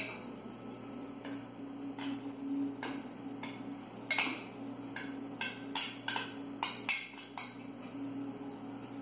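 Metal spoon clinking against a glass bowl and the rim of a blender jar while chocolate powder is scraped out and tapped off. It makes a string of sharp, irregular clinks, several a second at times.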